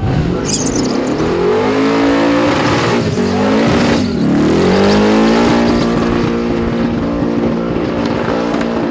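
Supercharged, methanol-fuelled burnout car's engine held at high revs with its rear tyres spinning and squealing. The engine note climbs over the first two seconds, dips twice around three and four seconds in, then holds steady at a high pitch.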